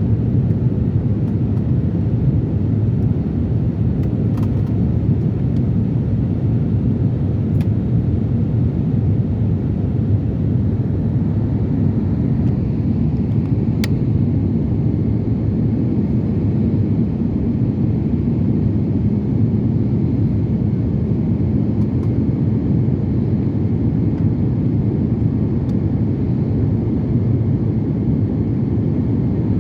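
Steady low cabin noise of an airliner descending to land: the engines and the rush of air heard from inside the passenger cabin, with a few faint clicks.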